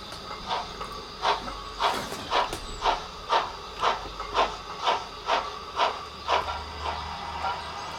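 Sound-fitted OO gauge model steam locomotive, a Bachmann GCR Class 11F, playing steam exhaust chuffs through its onboard speaker at about two a second over a steady hiss. The chuffs grow weaker near the end as a low rumble comes in.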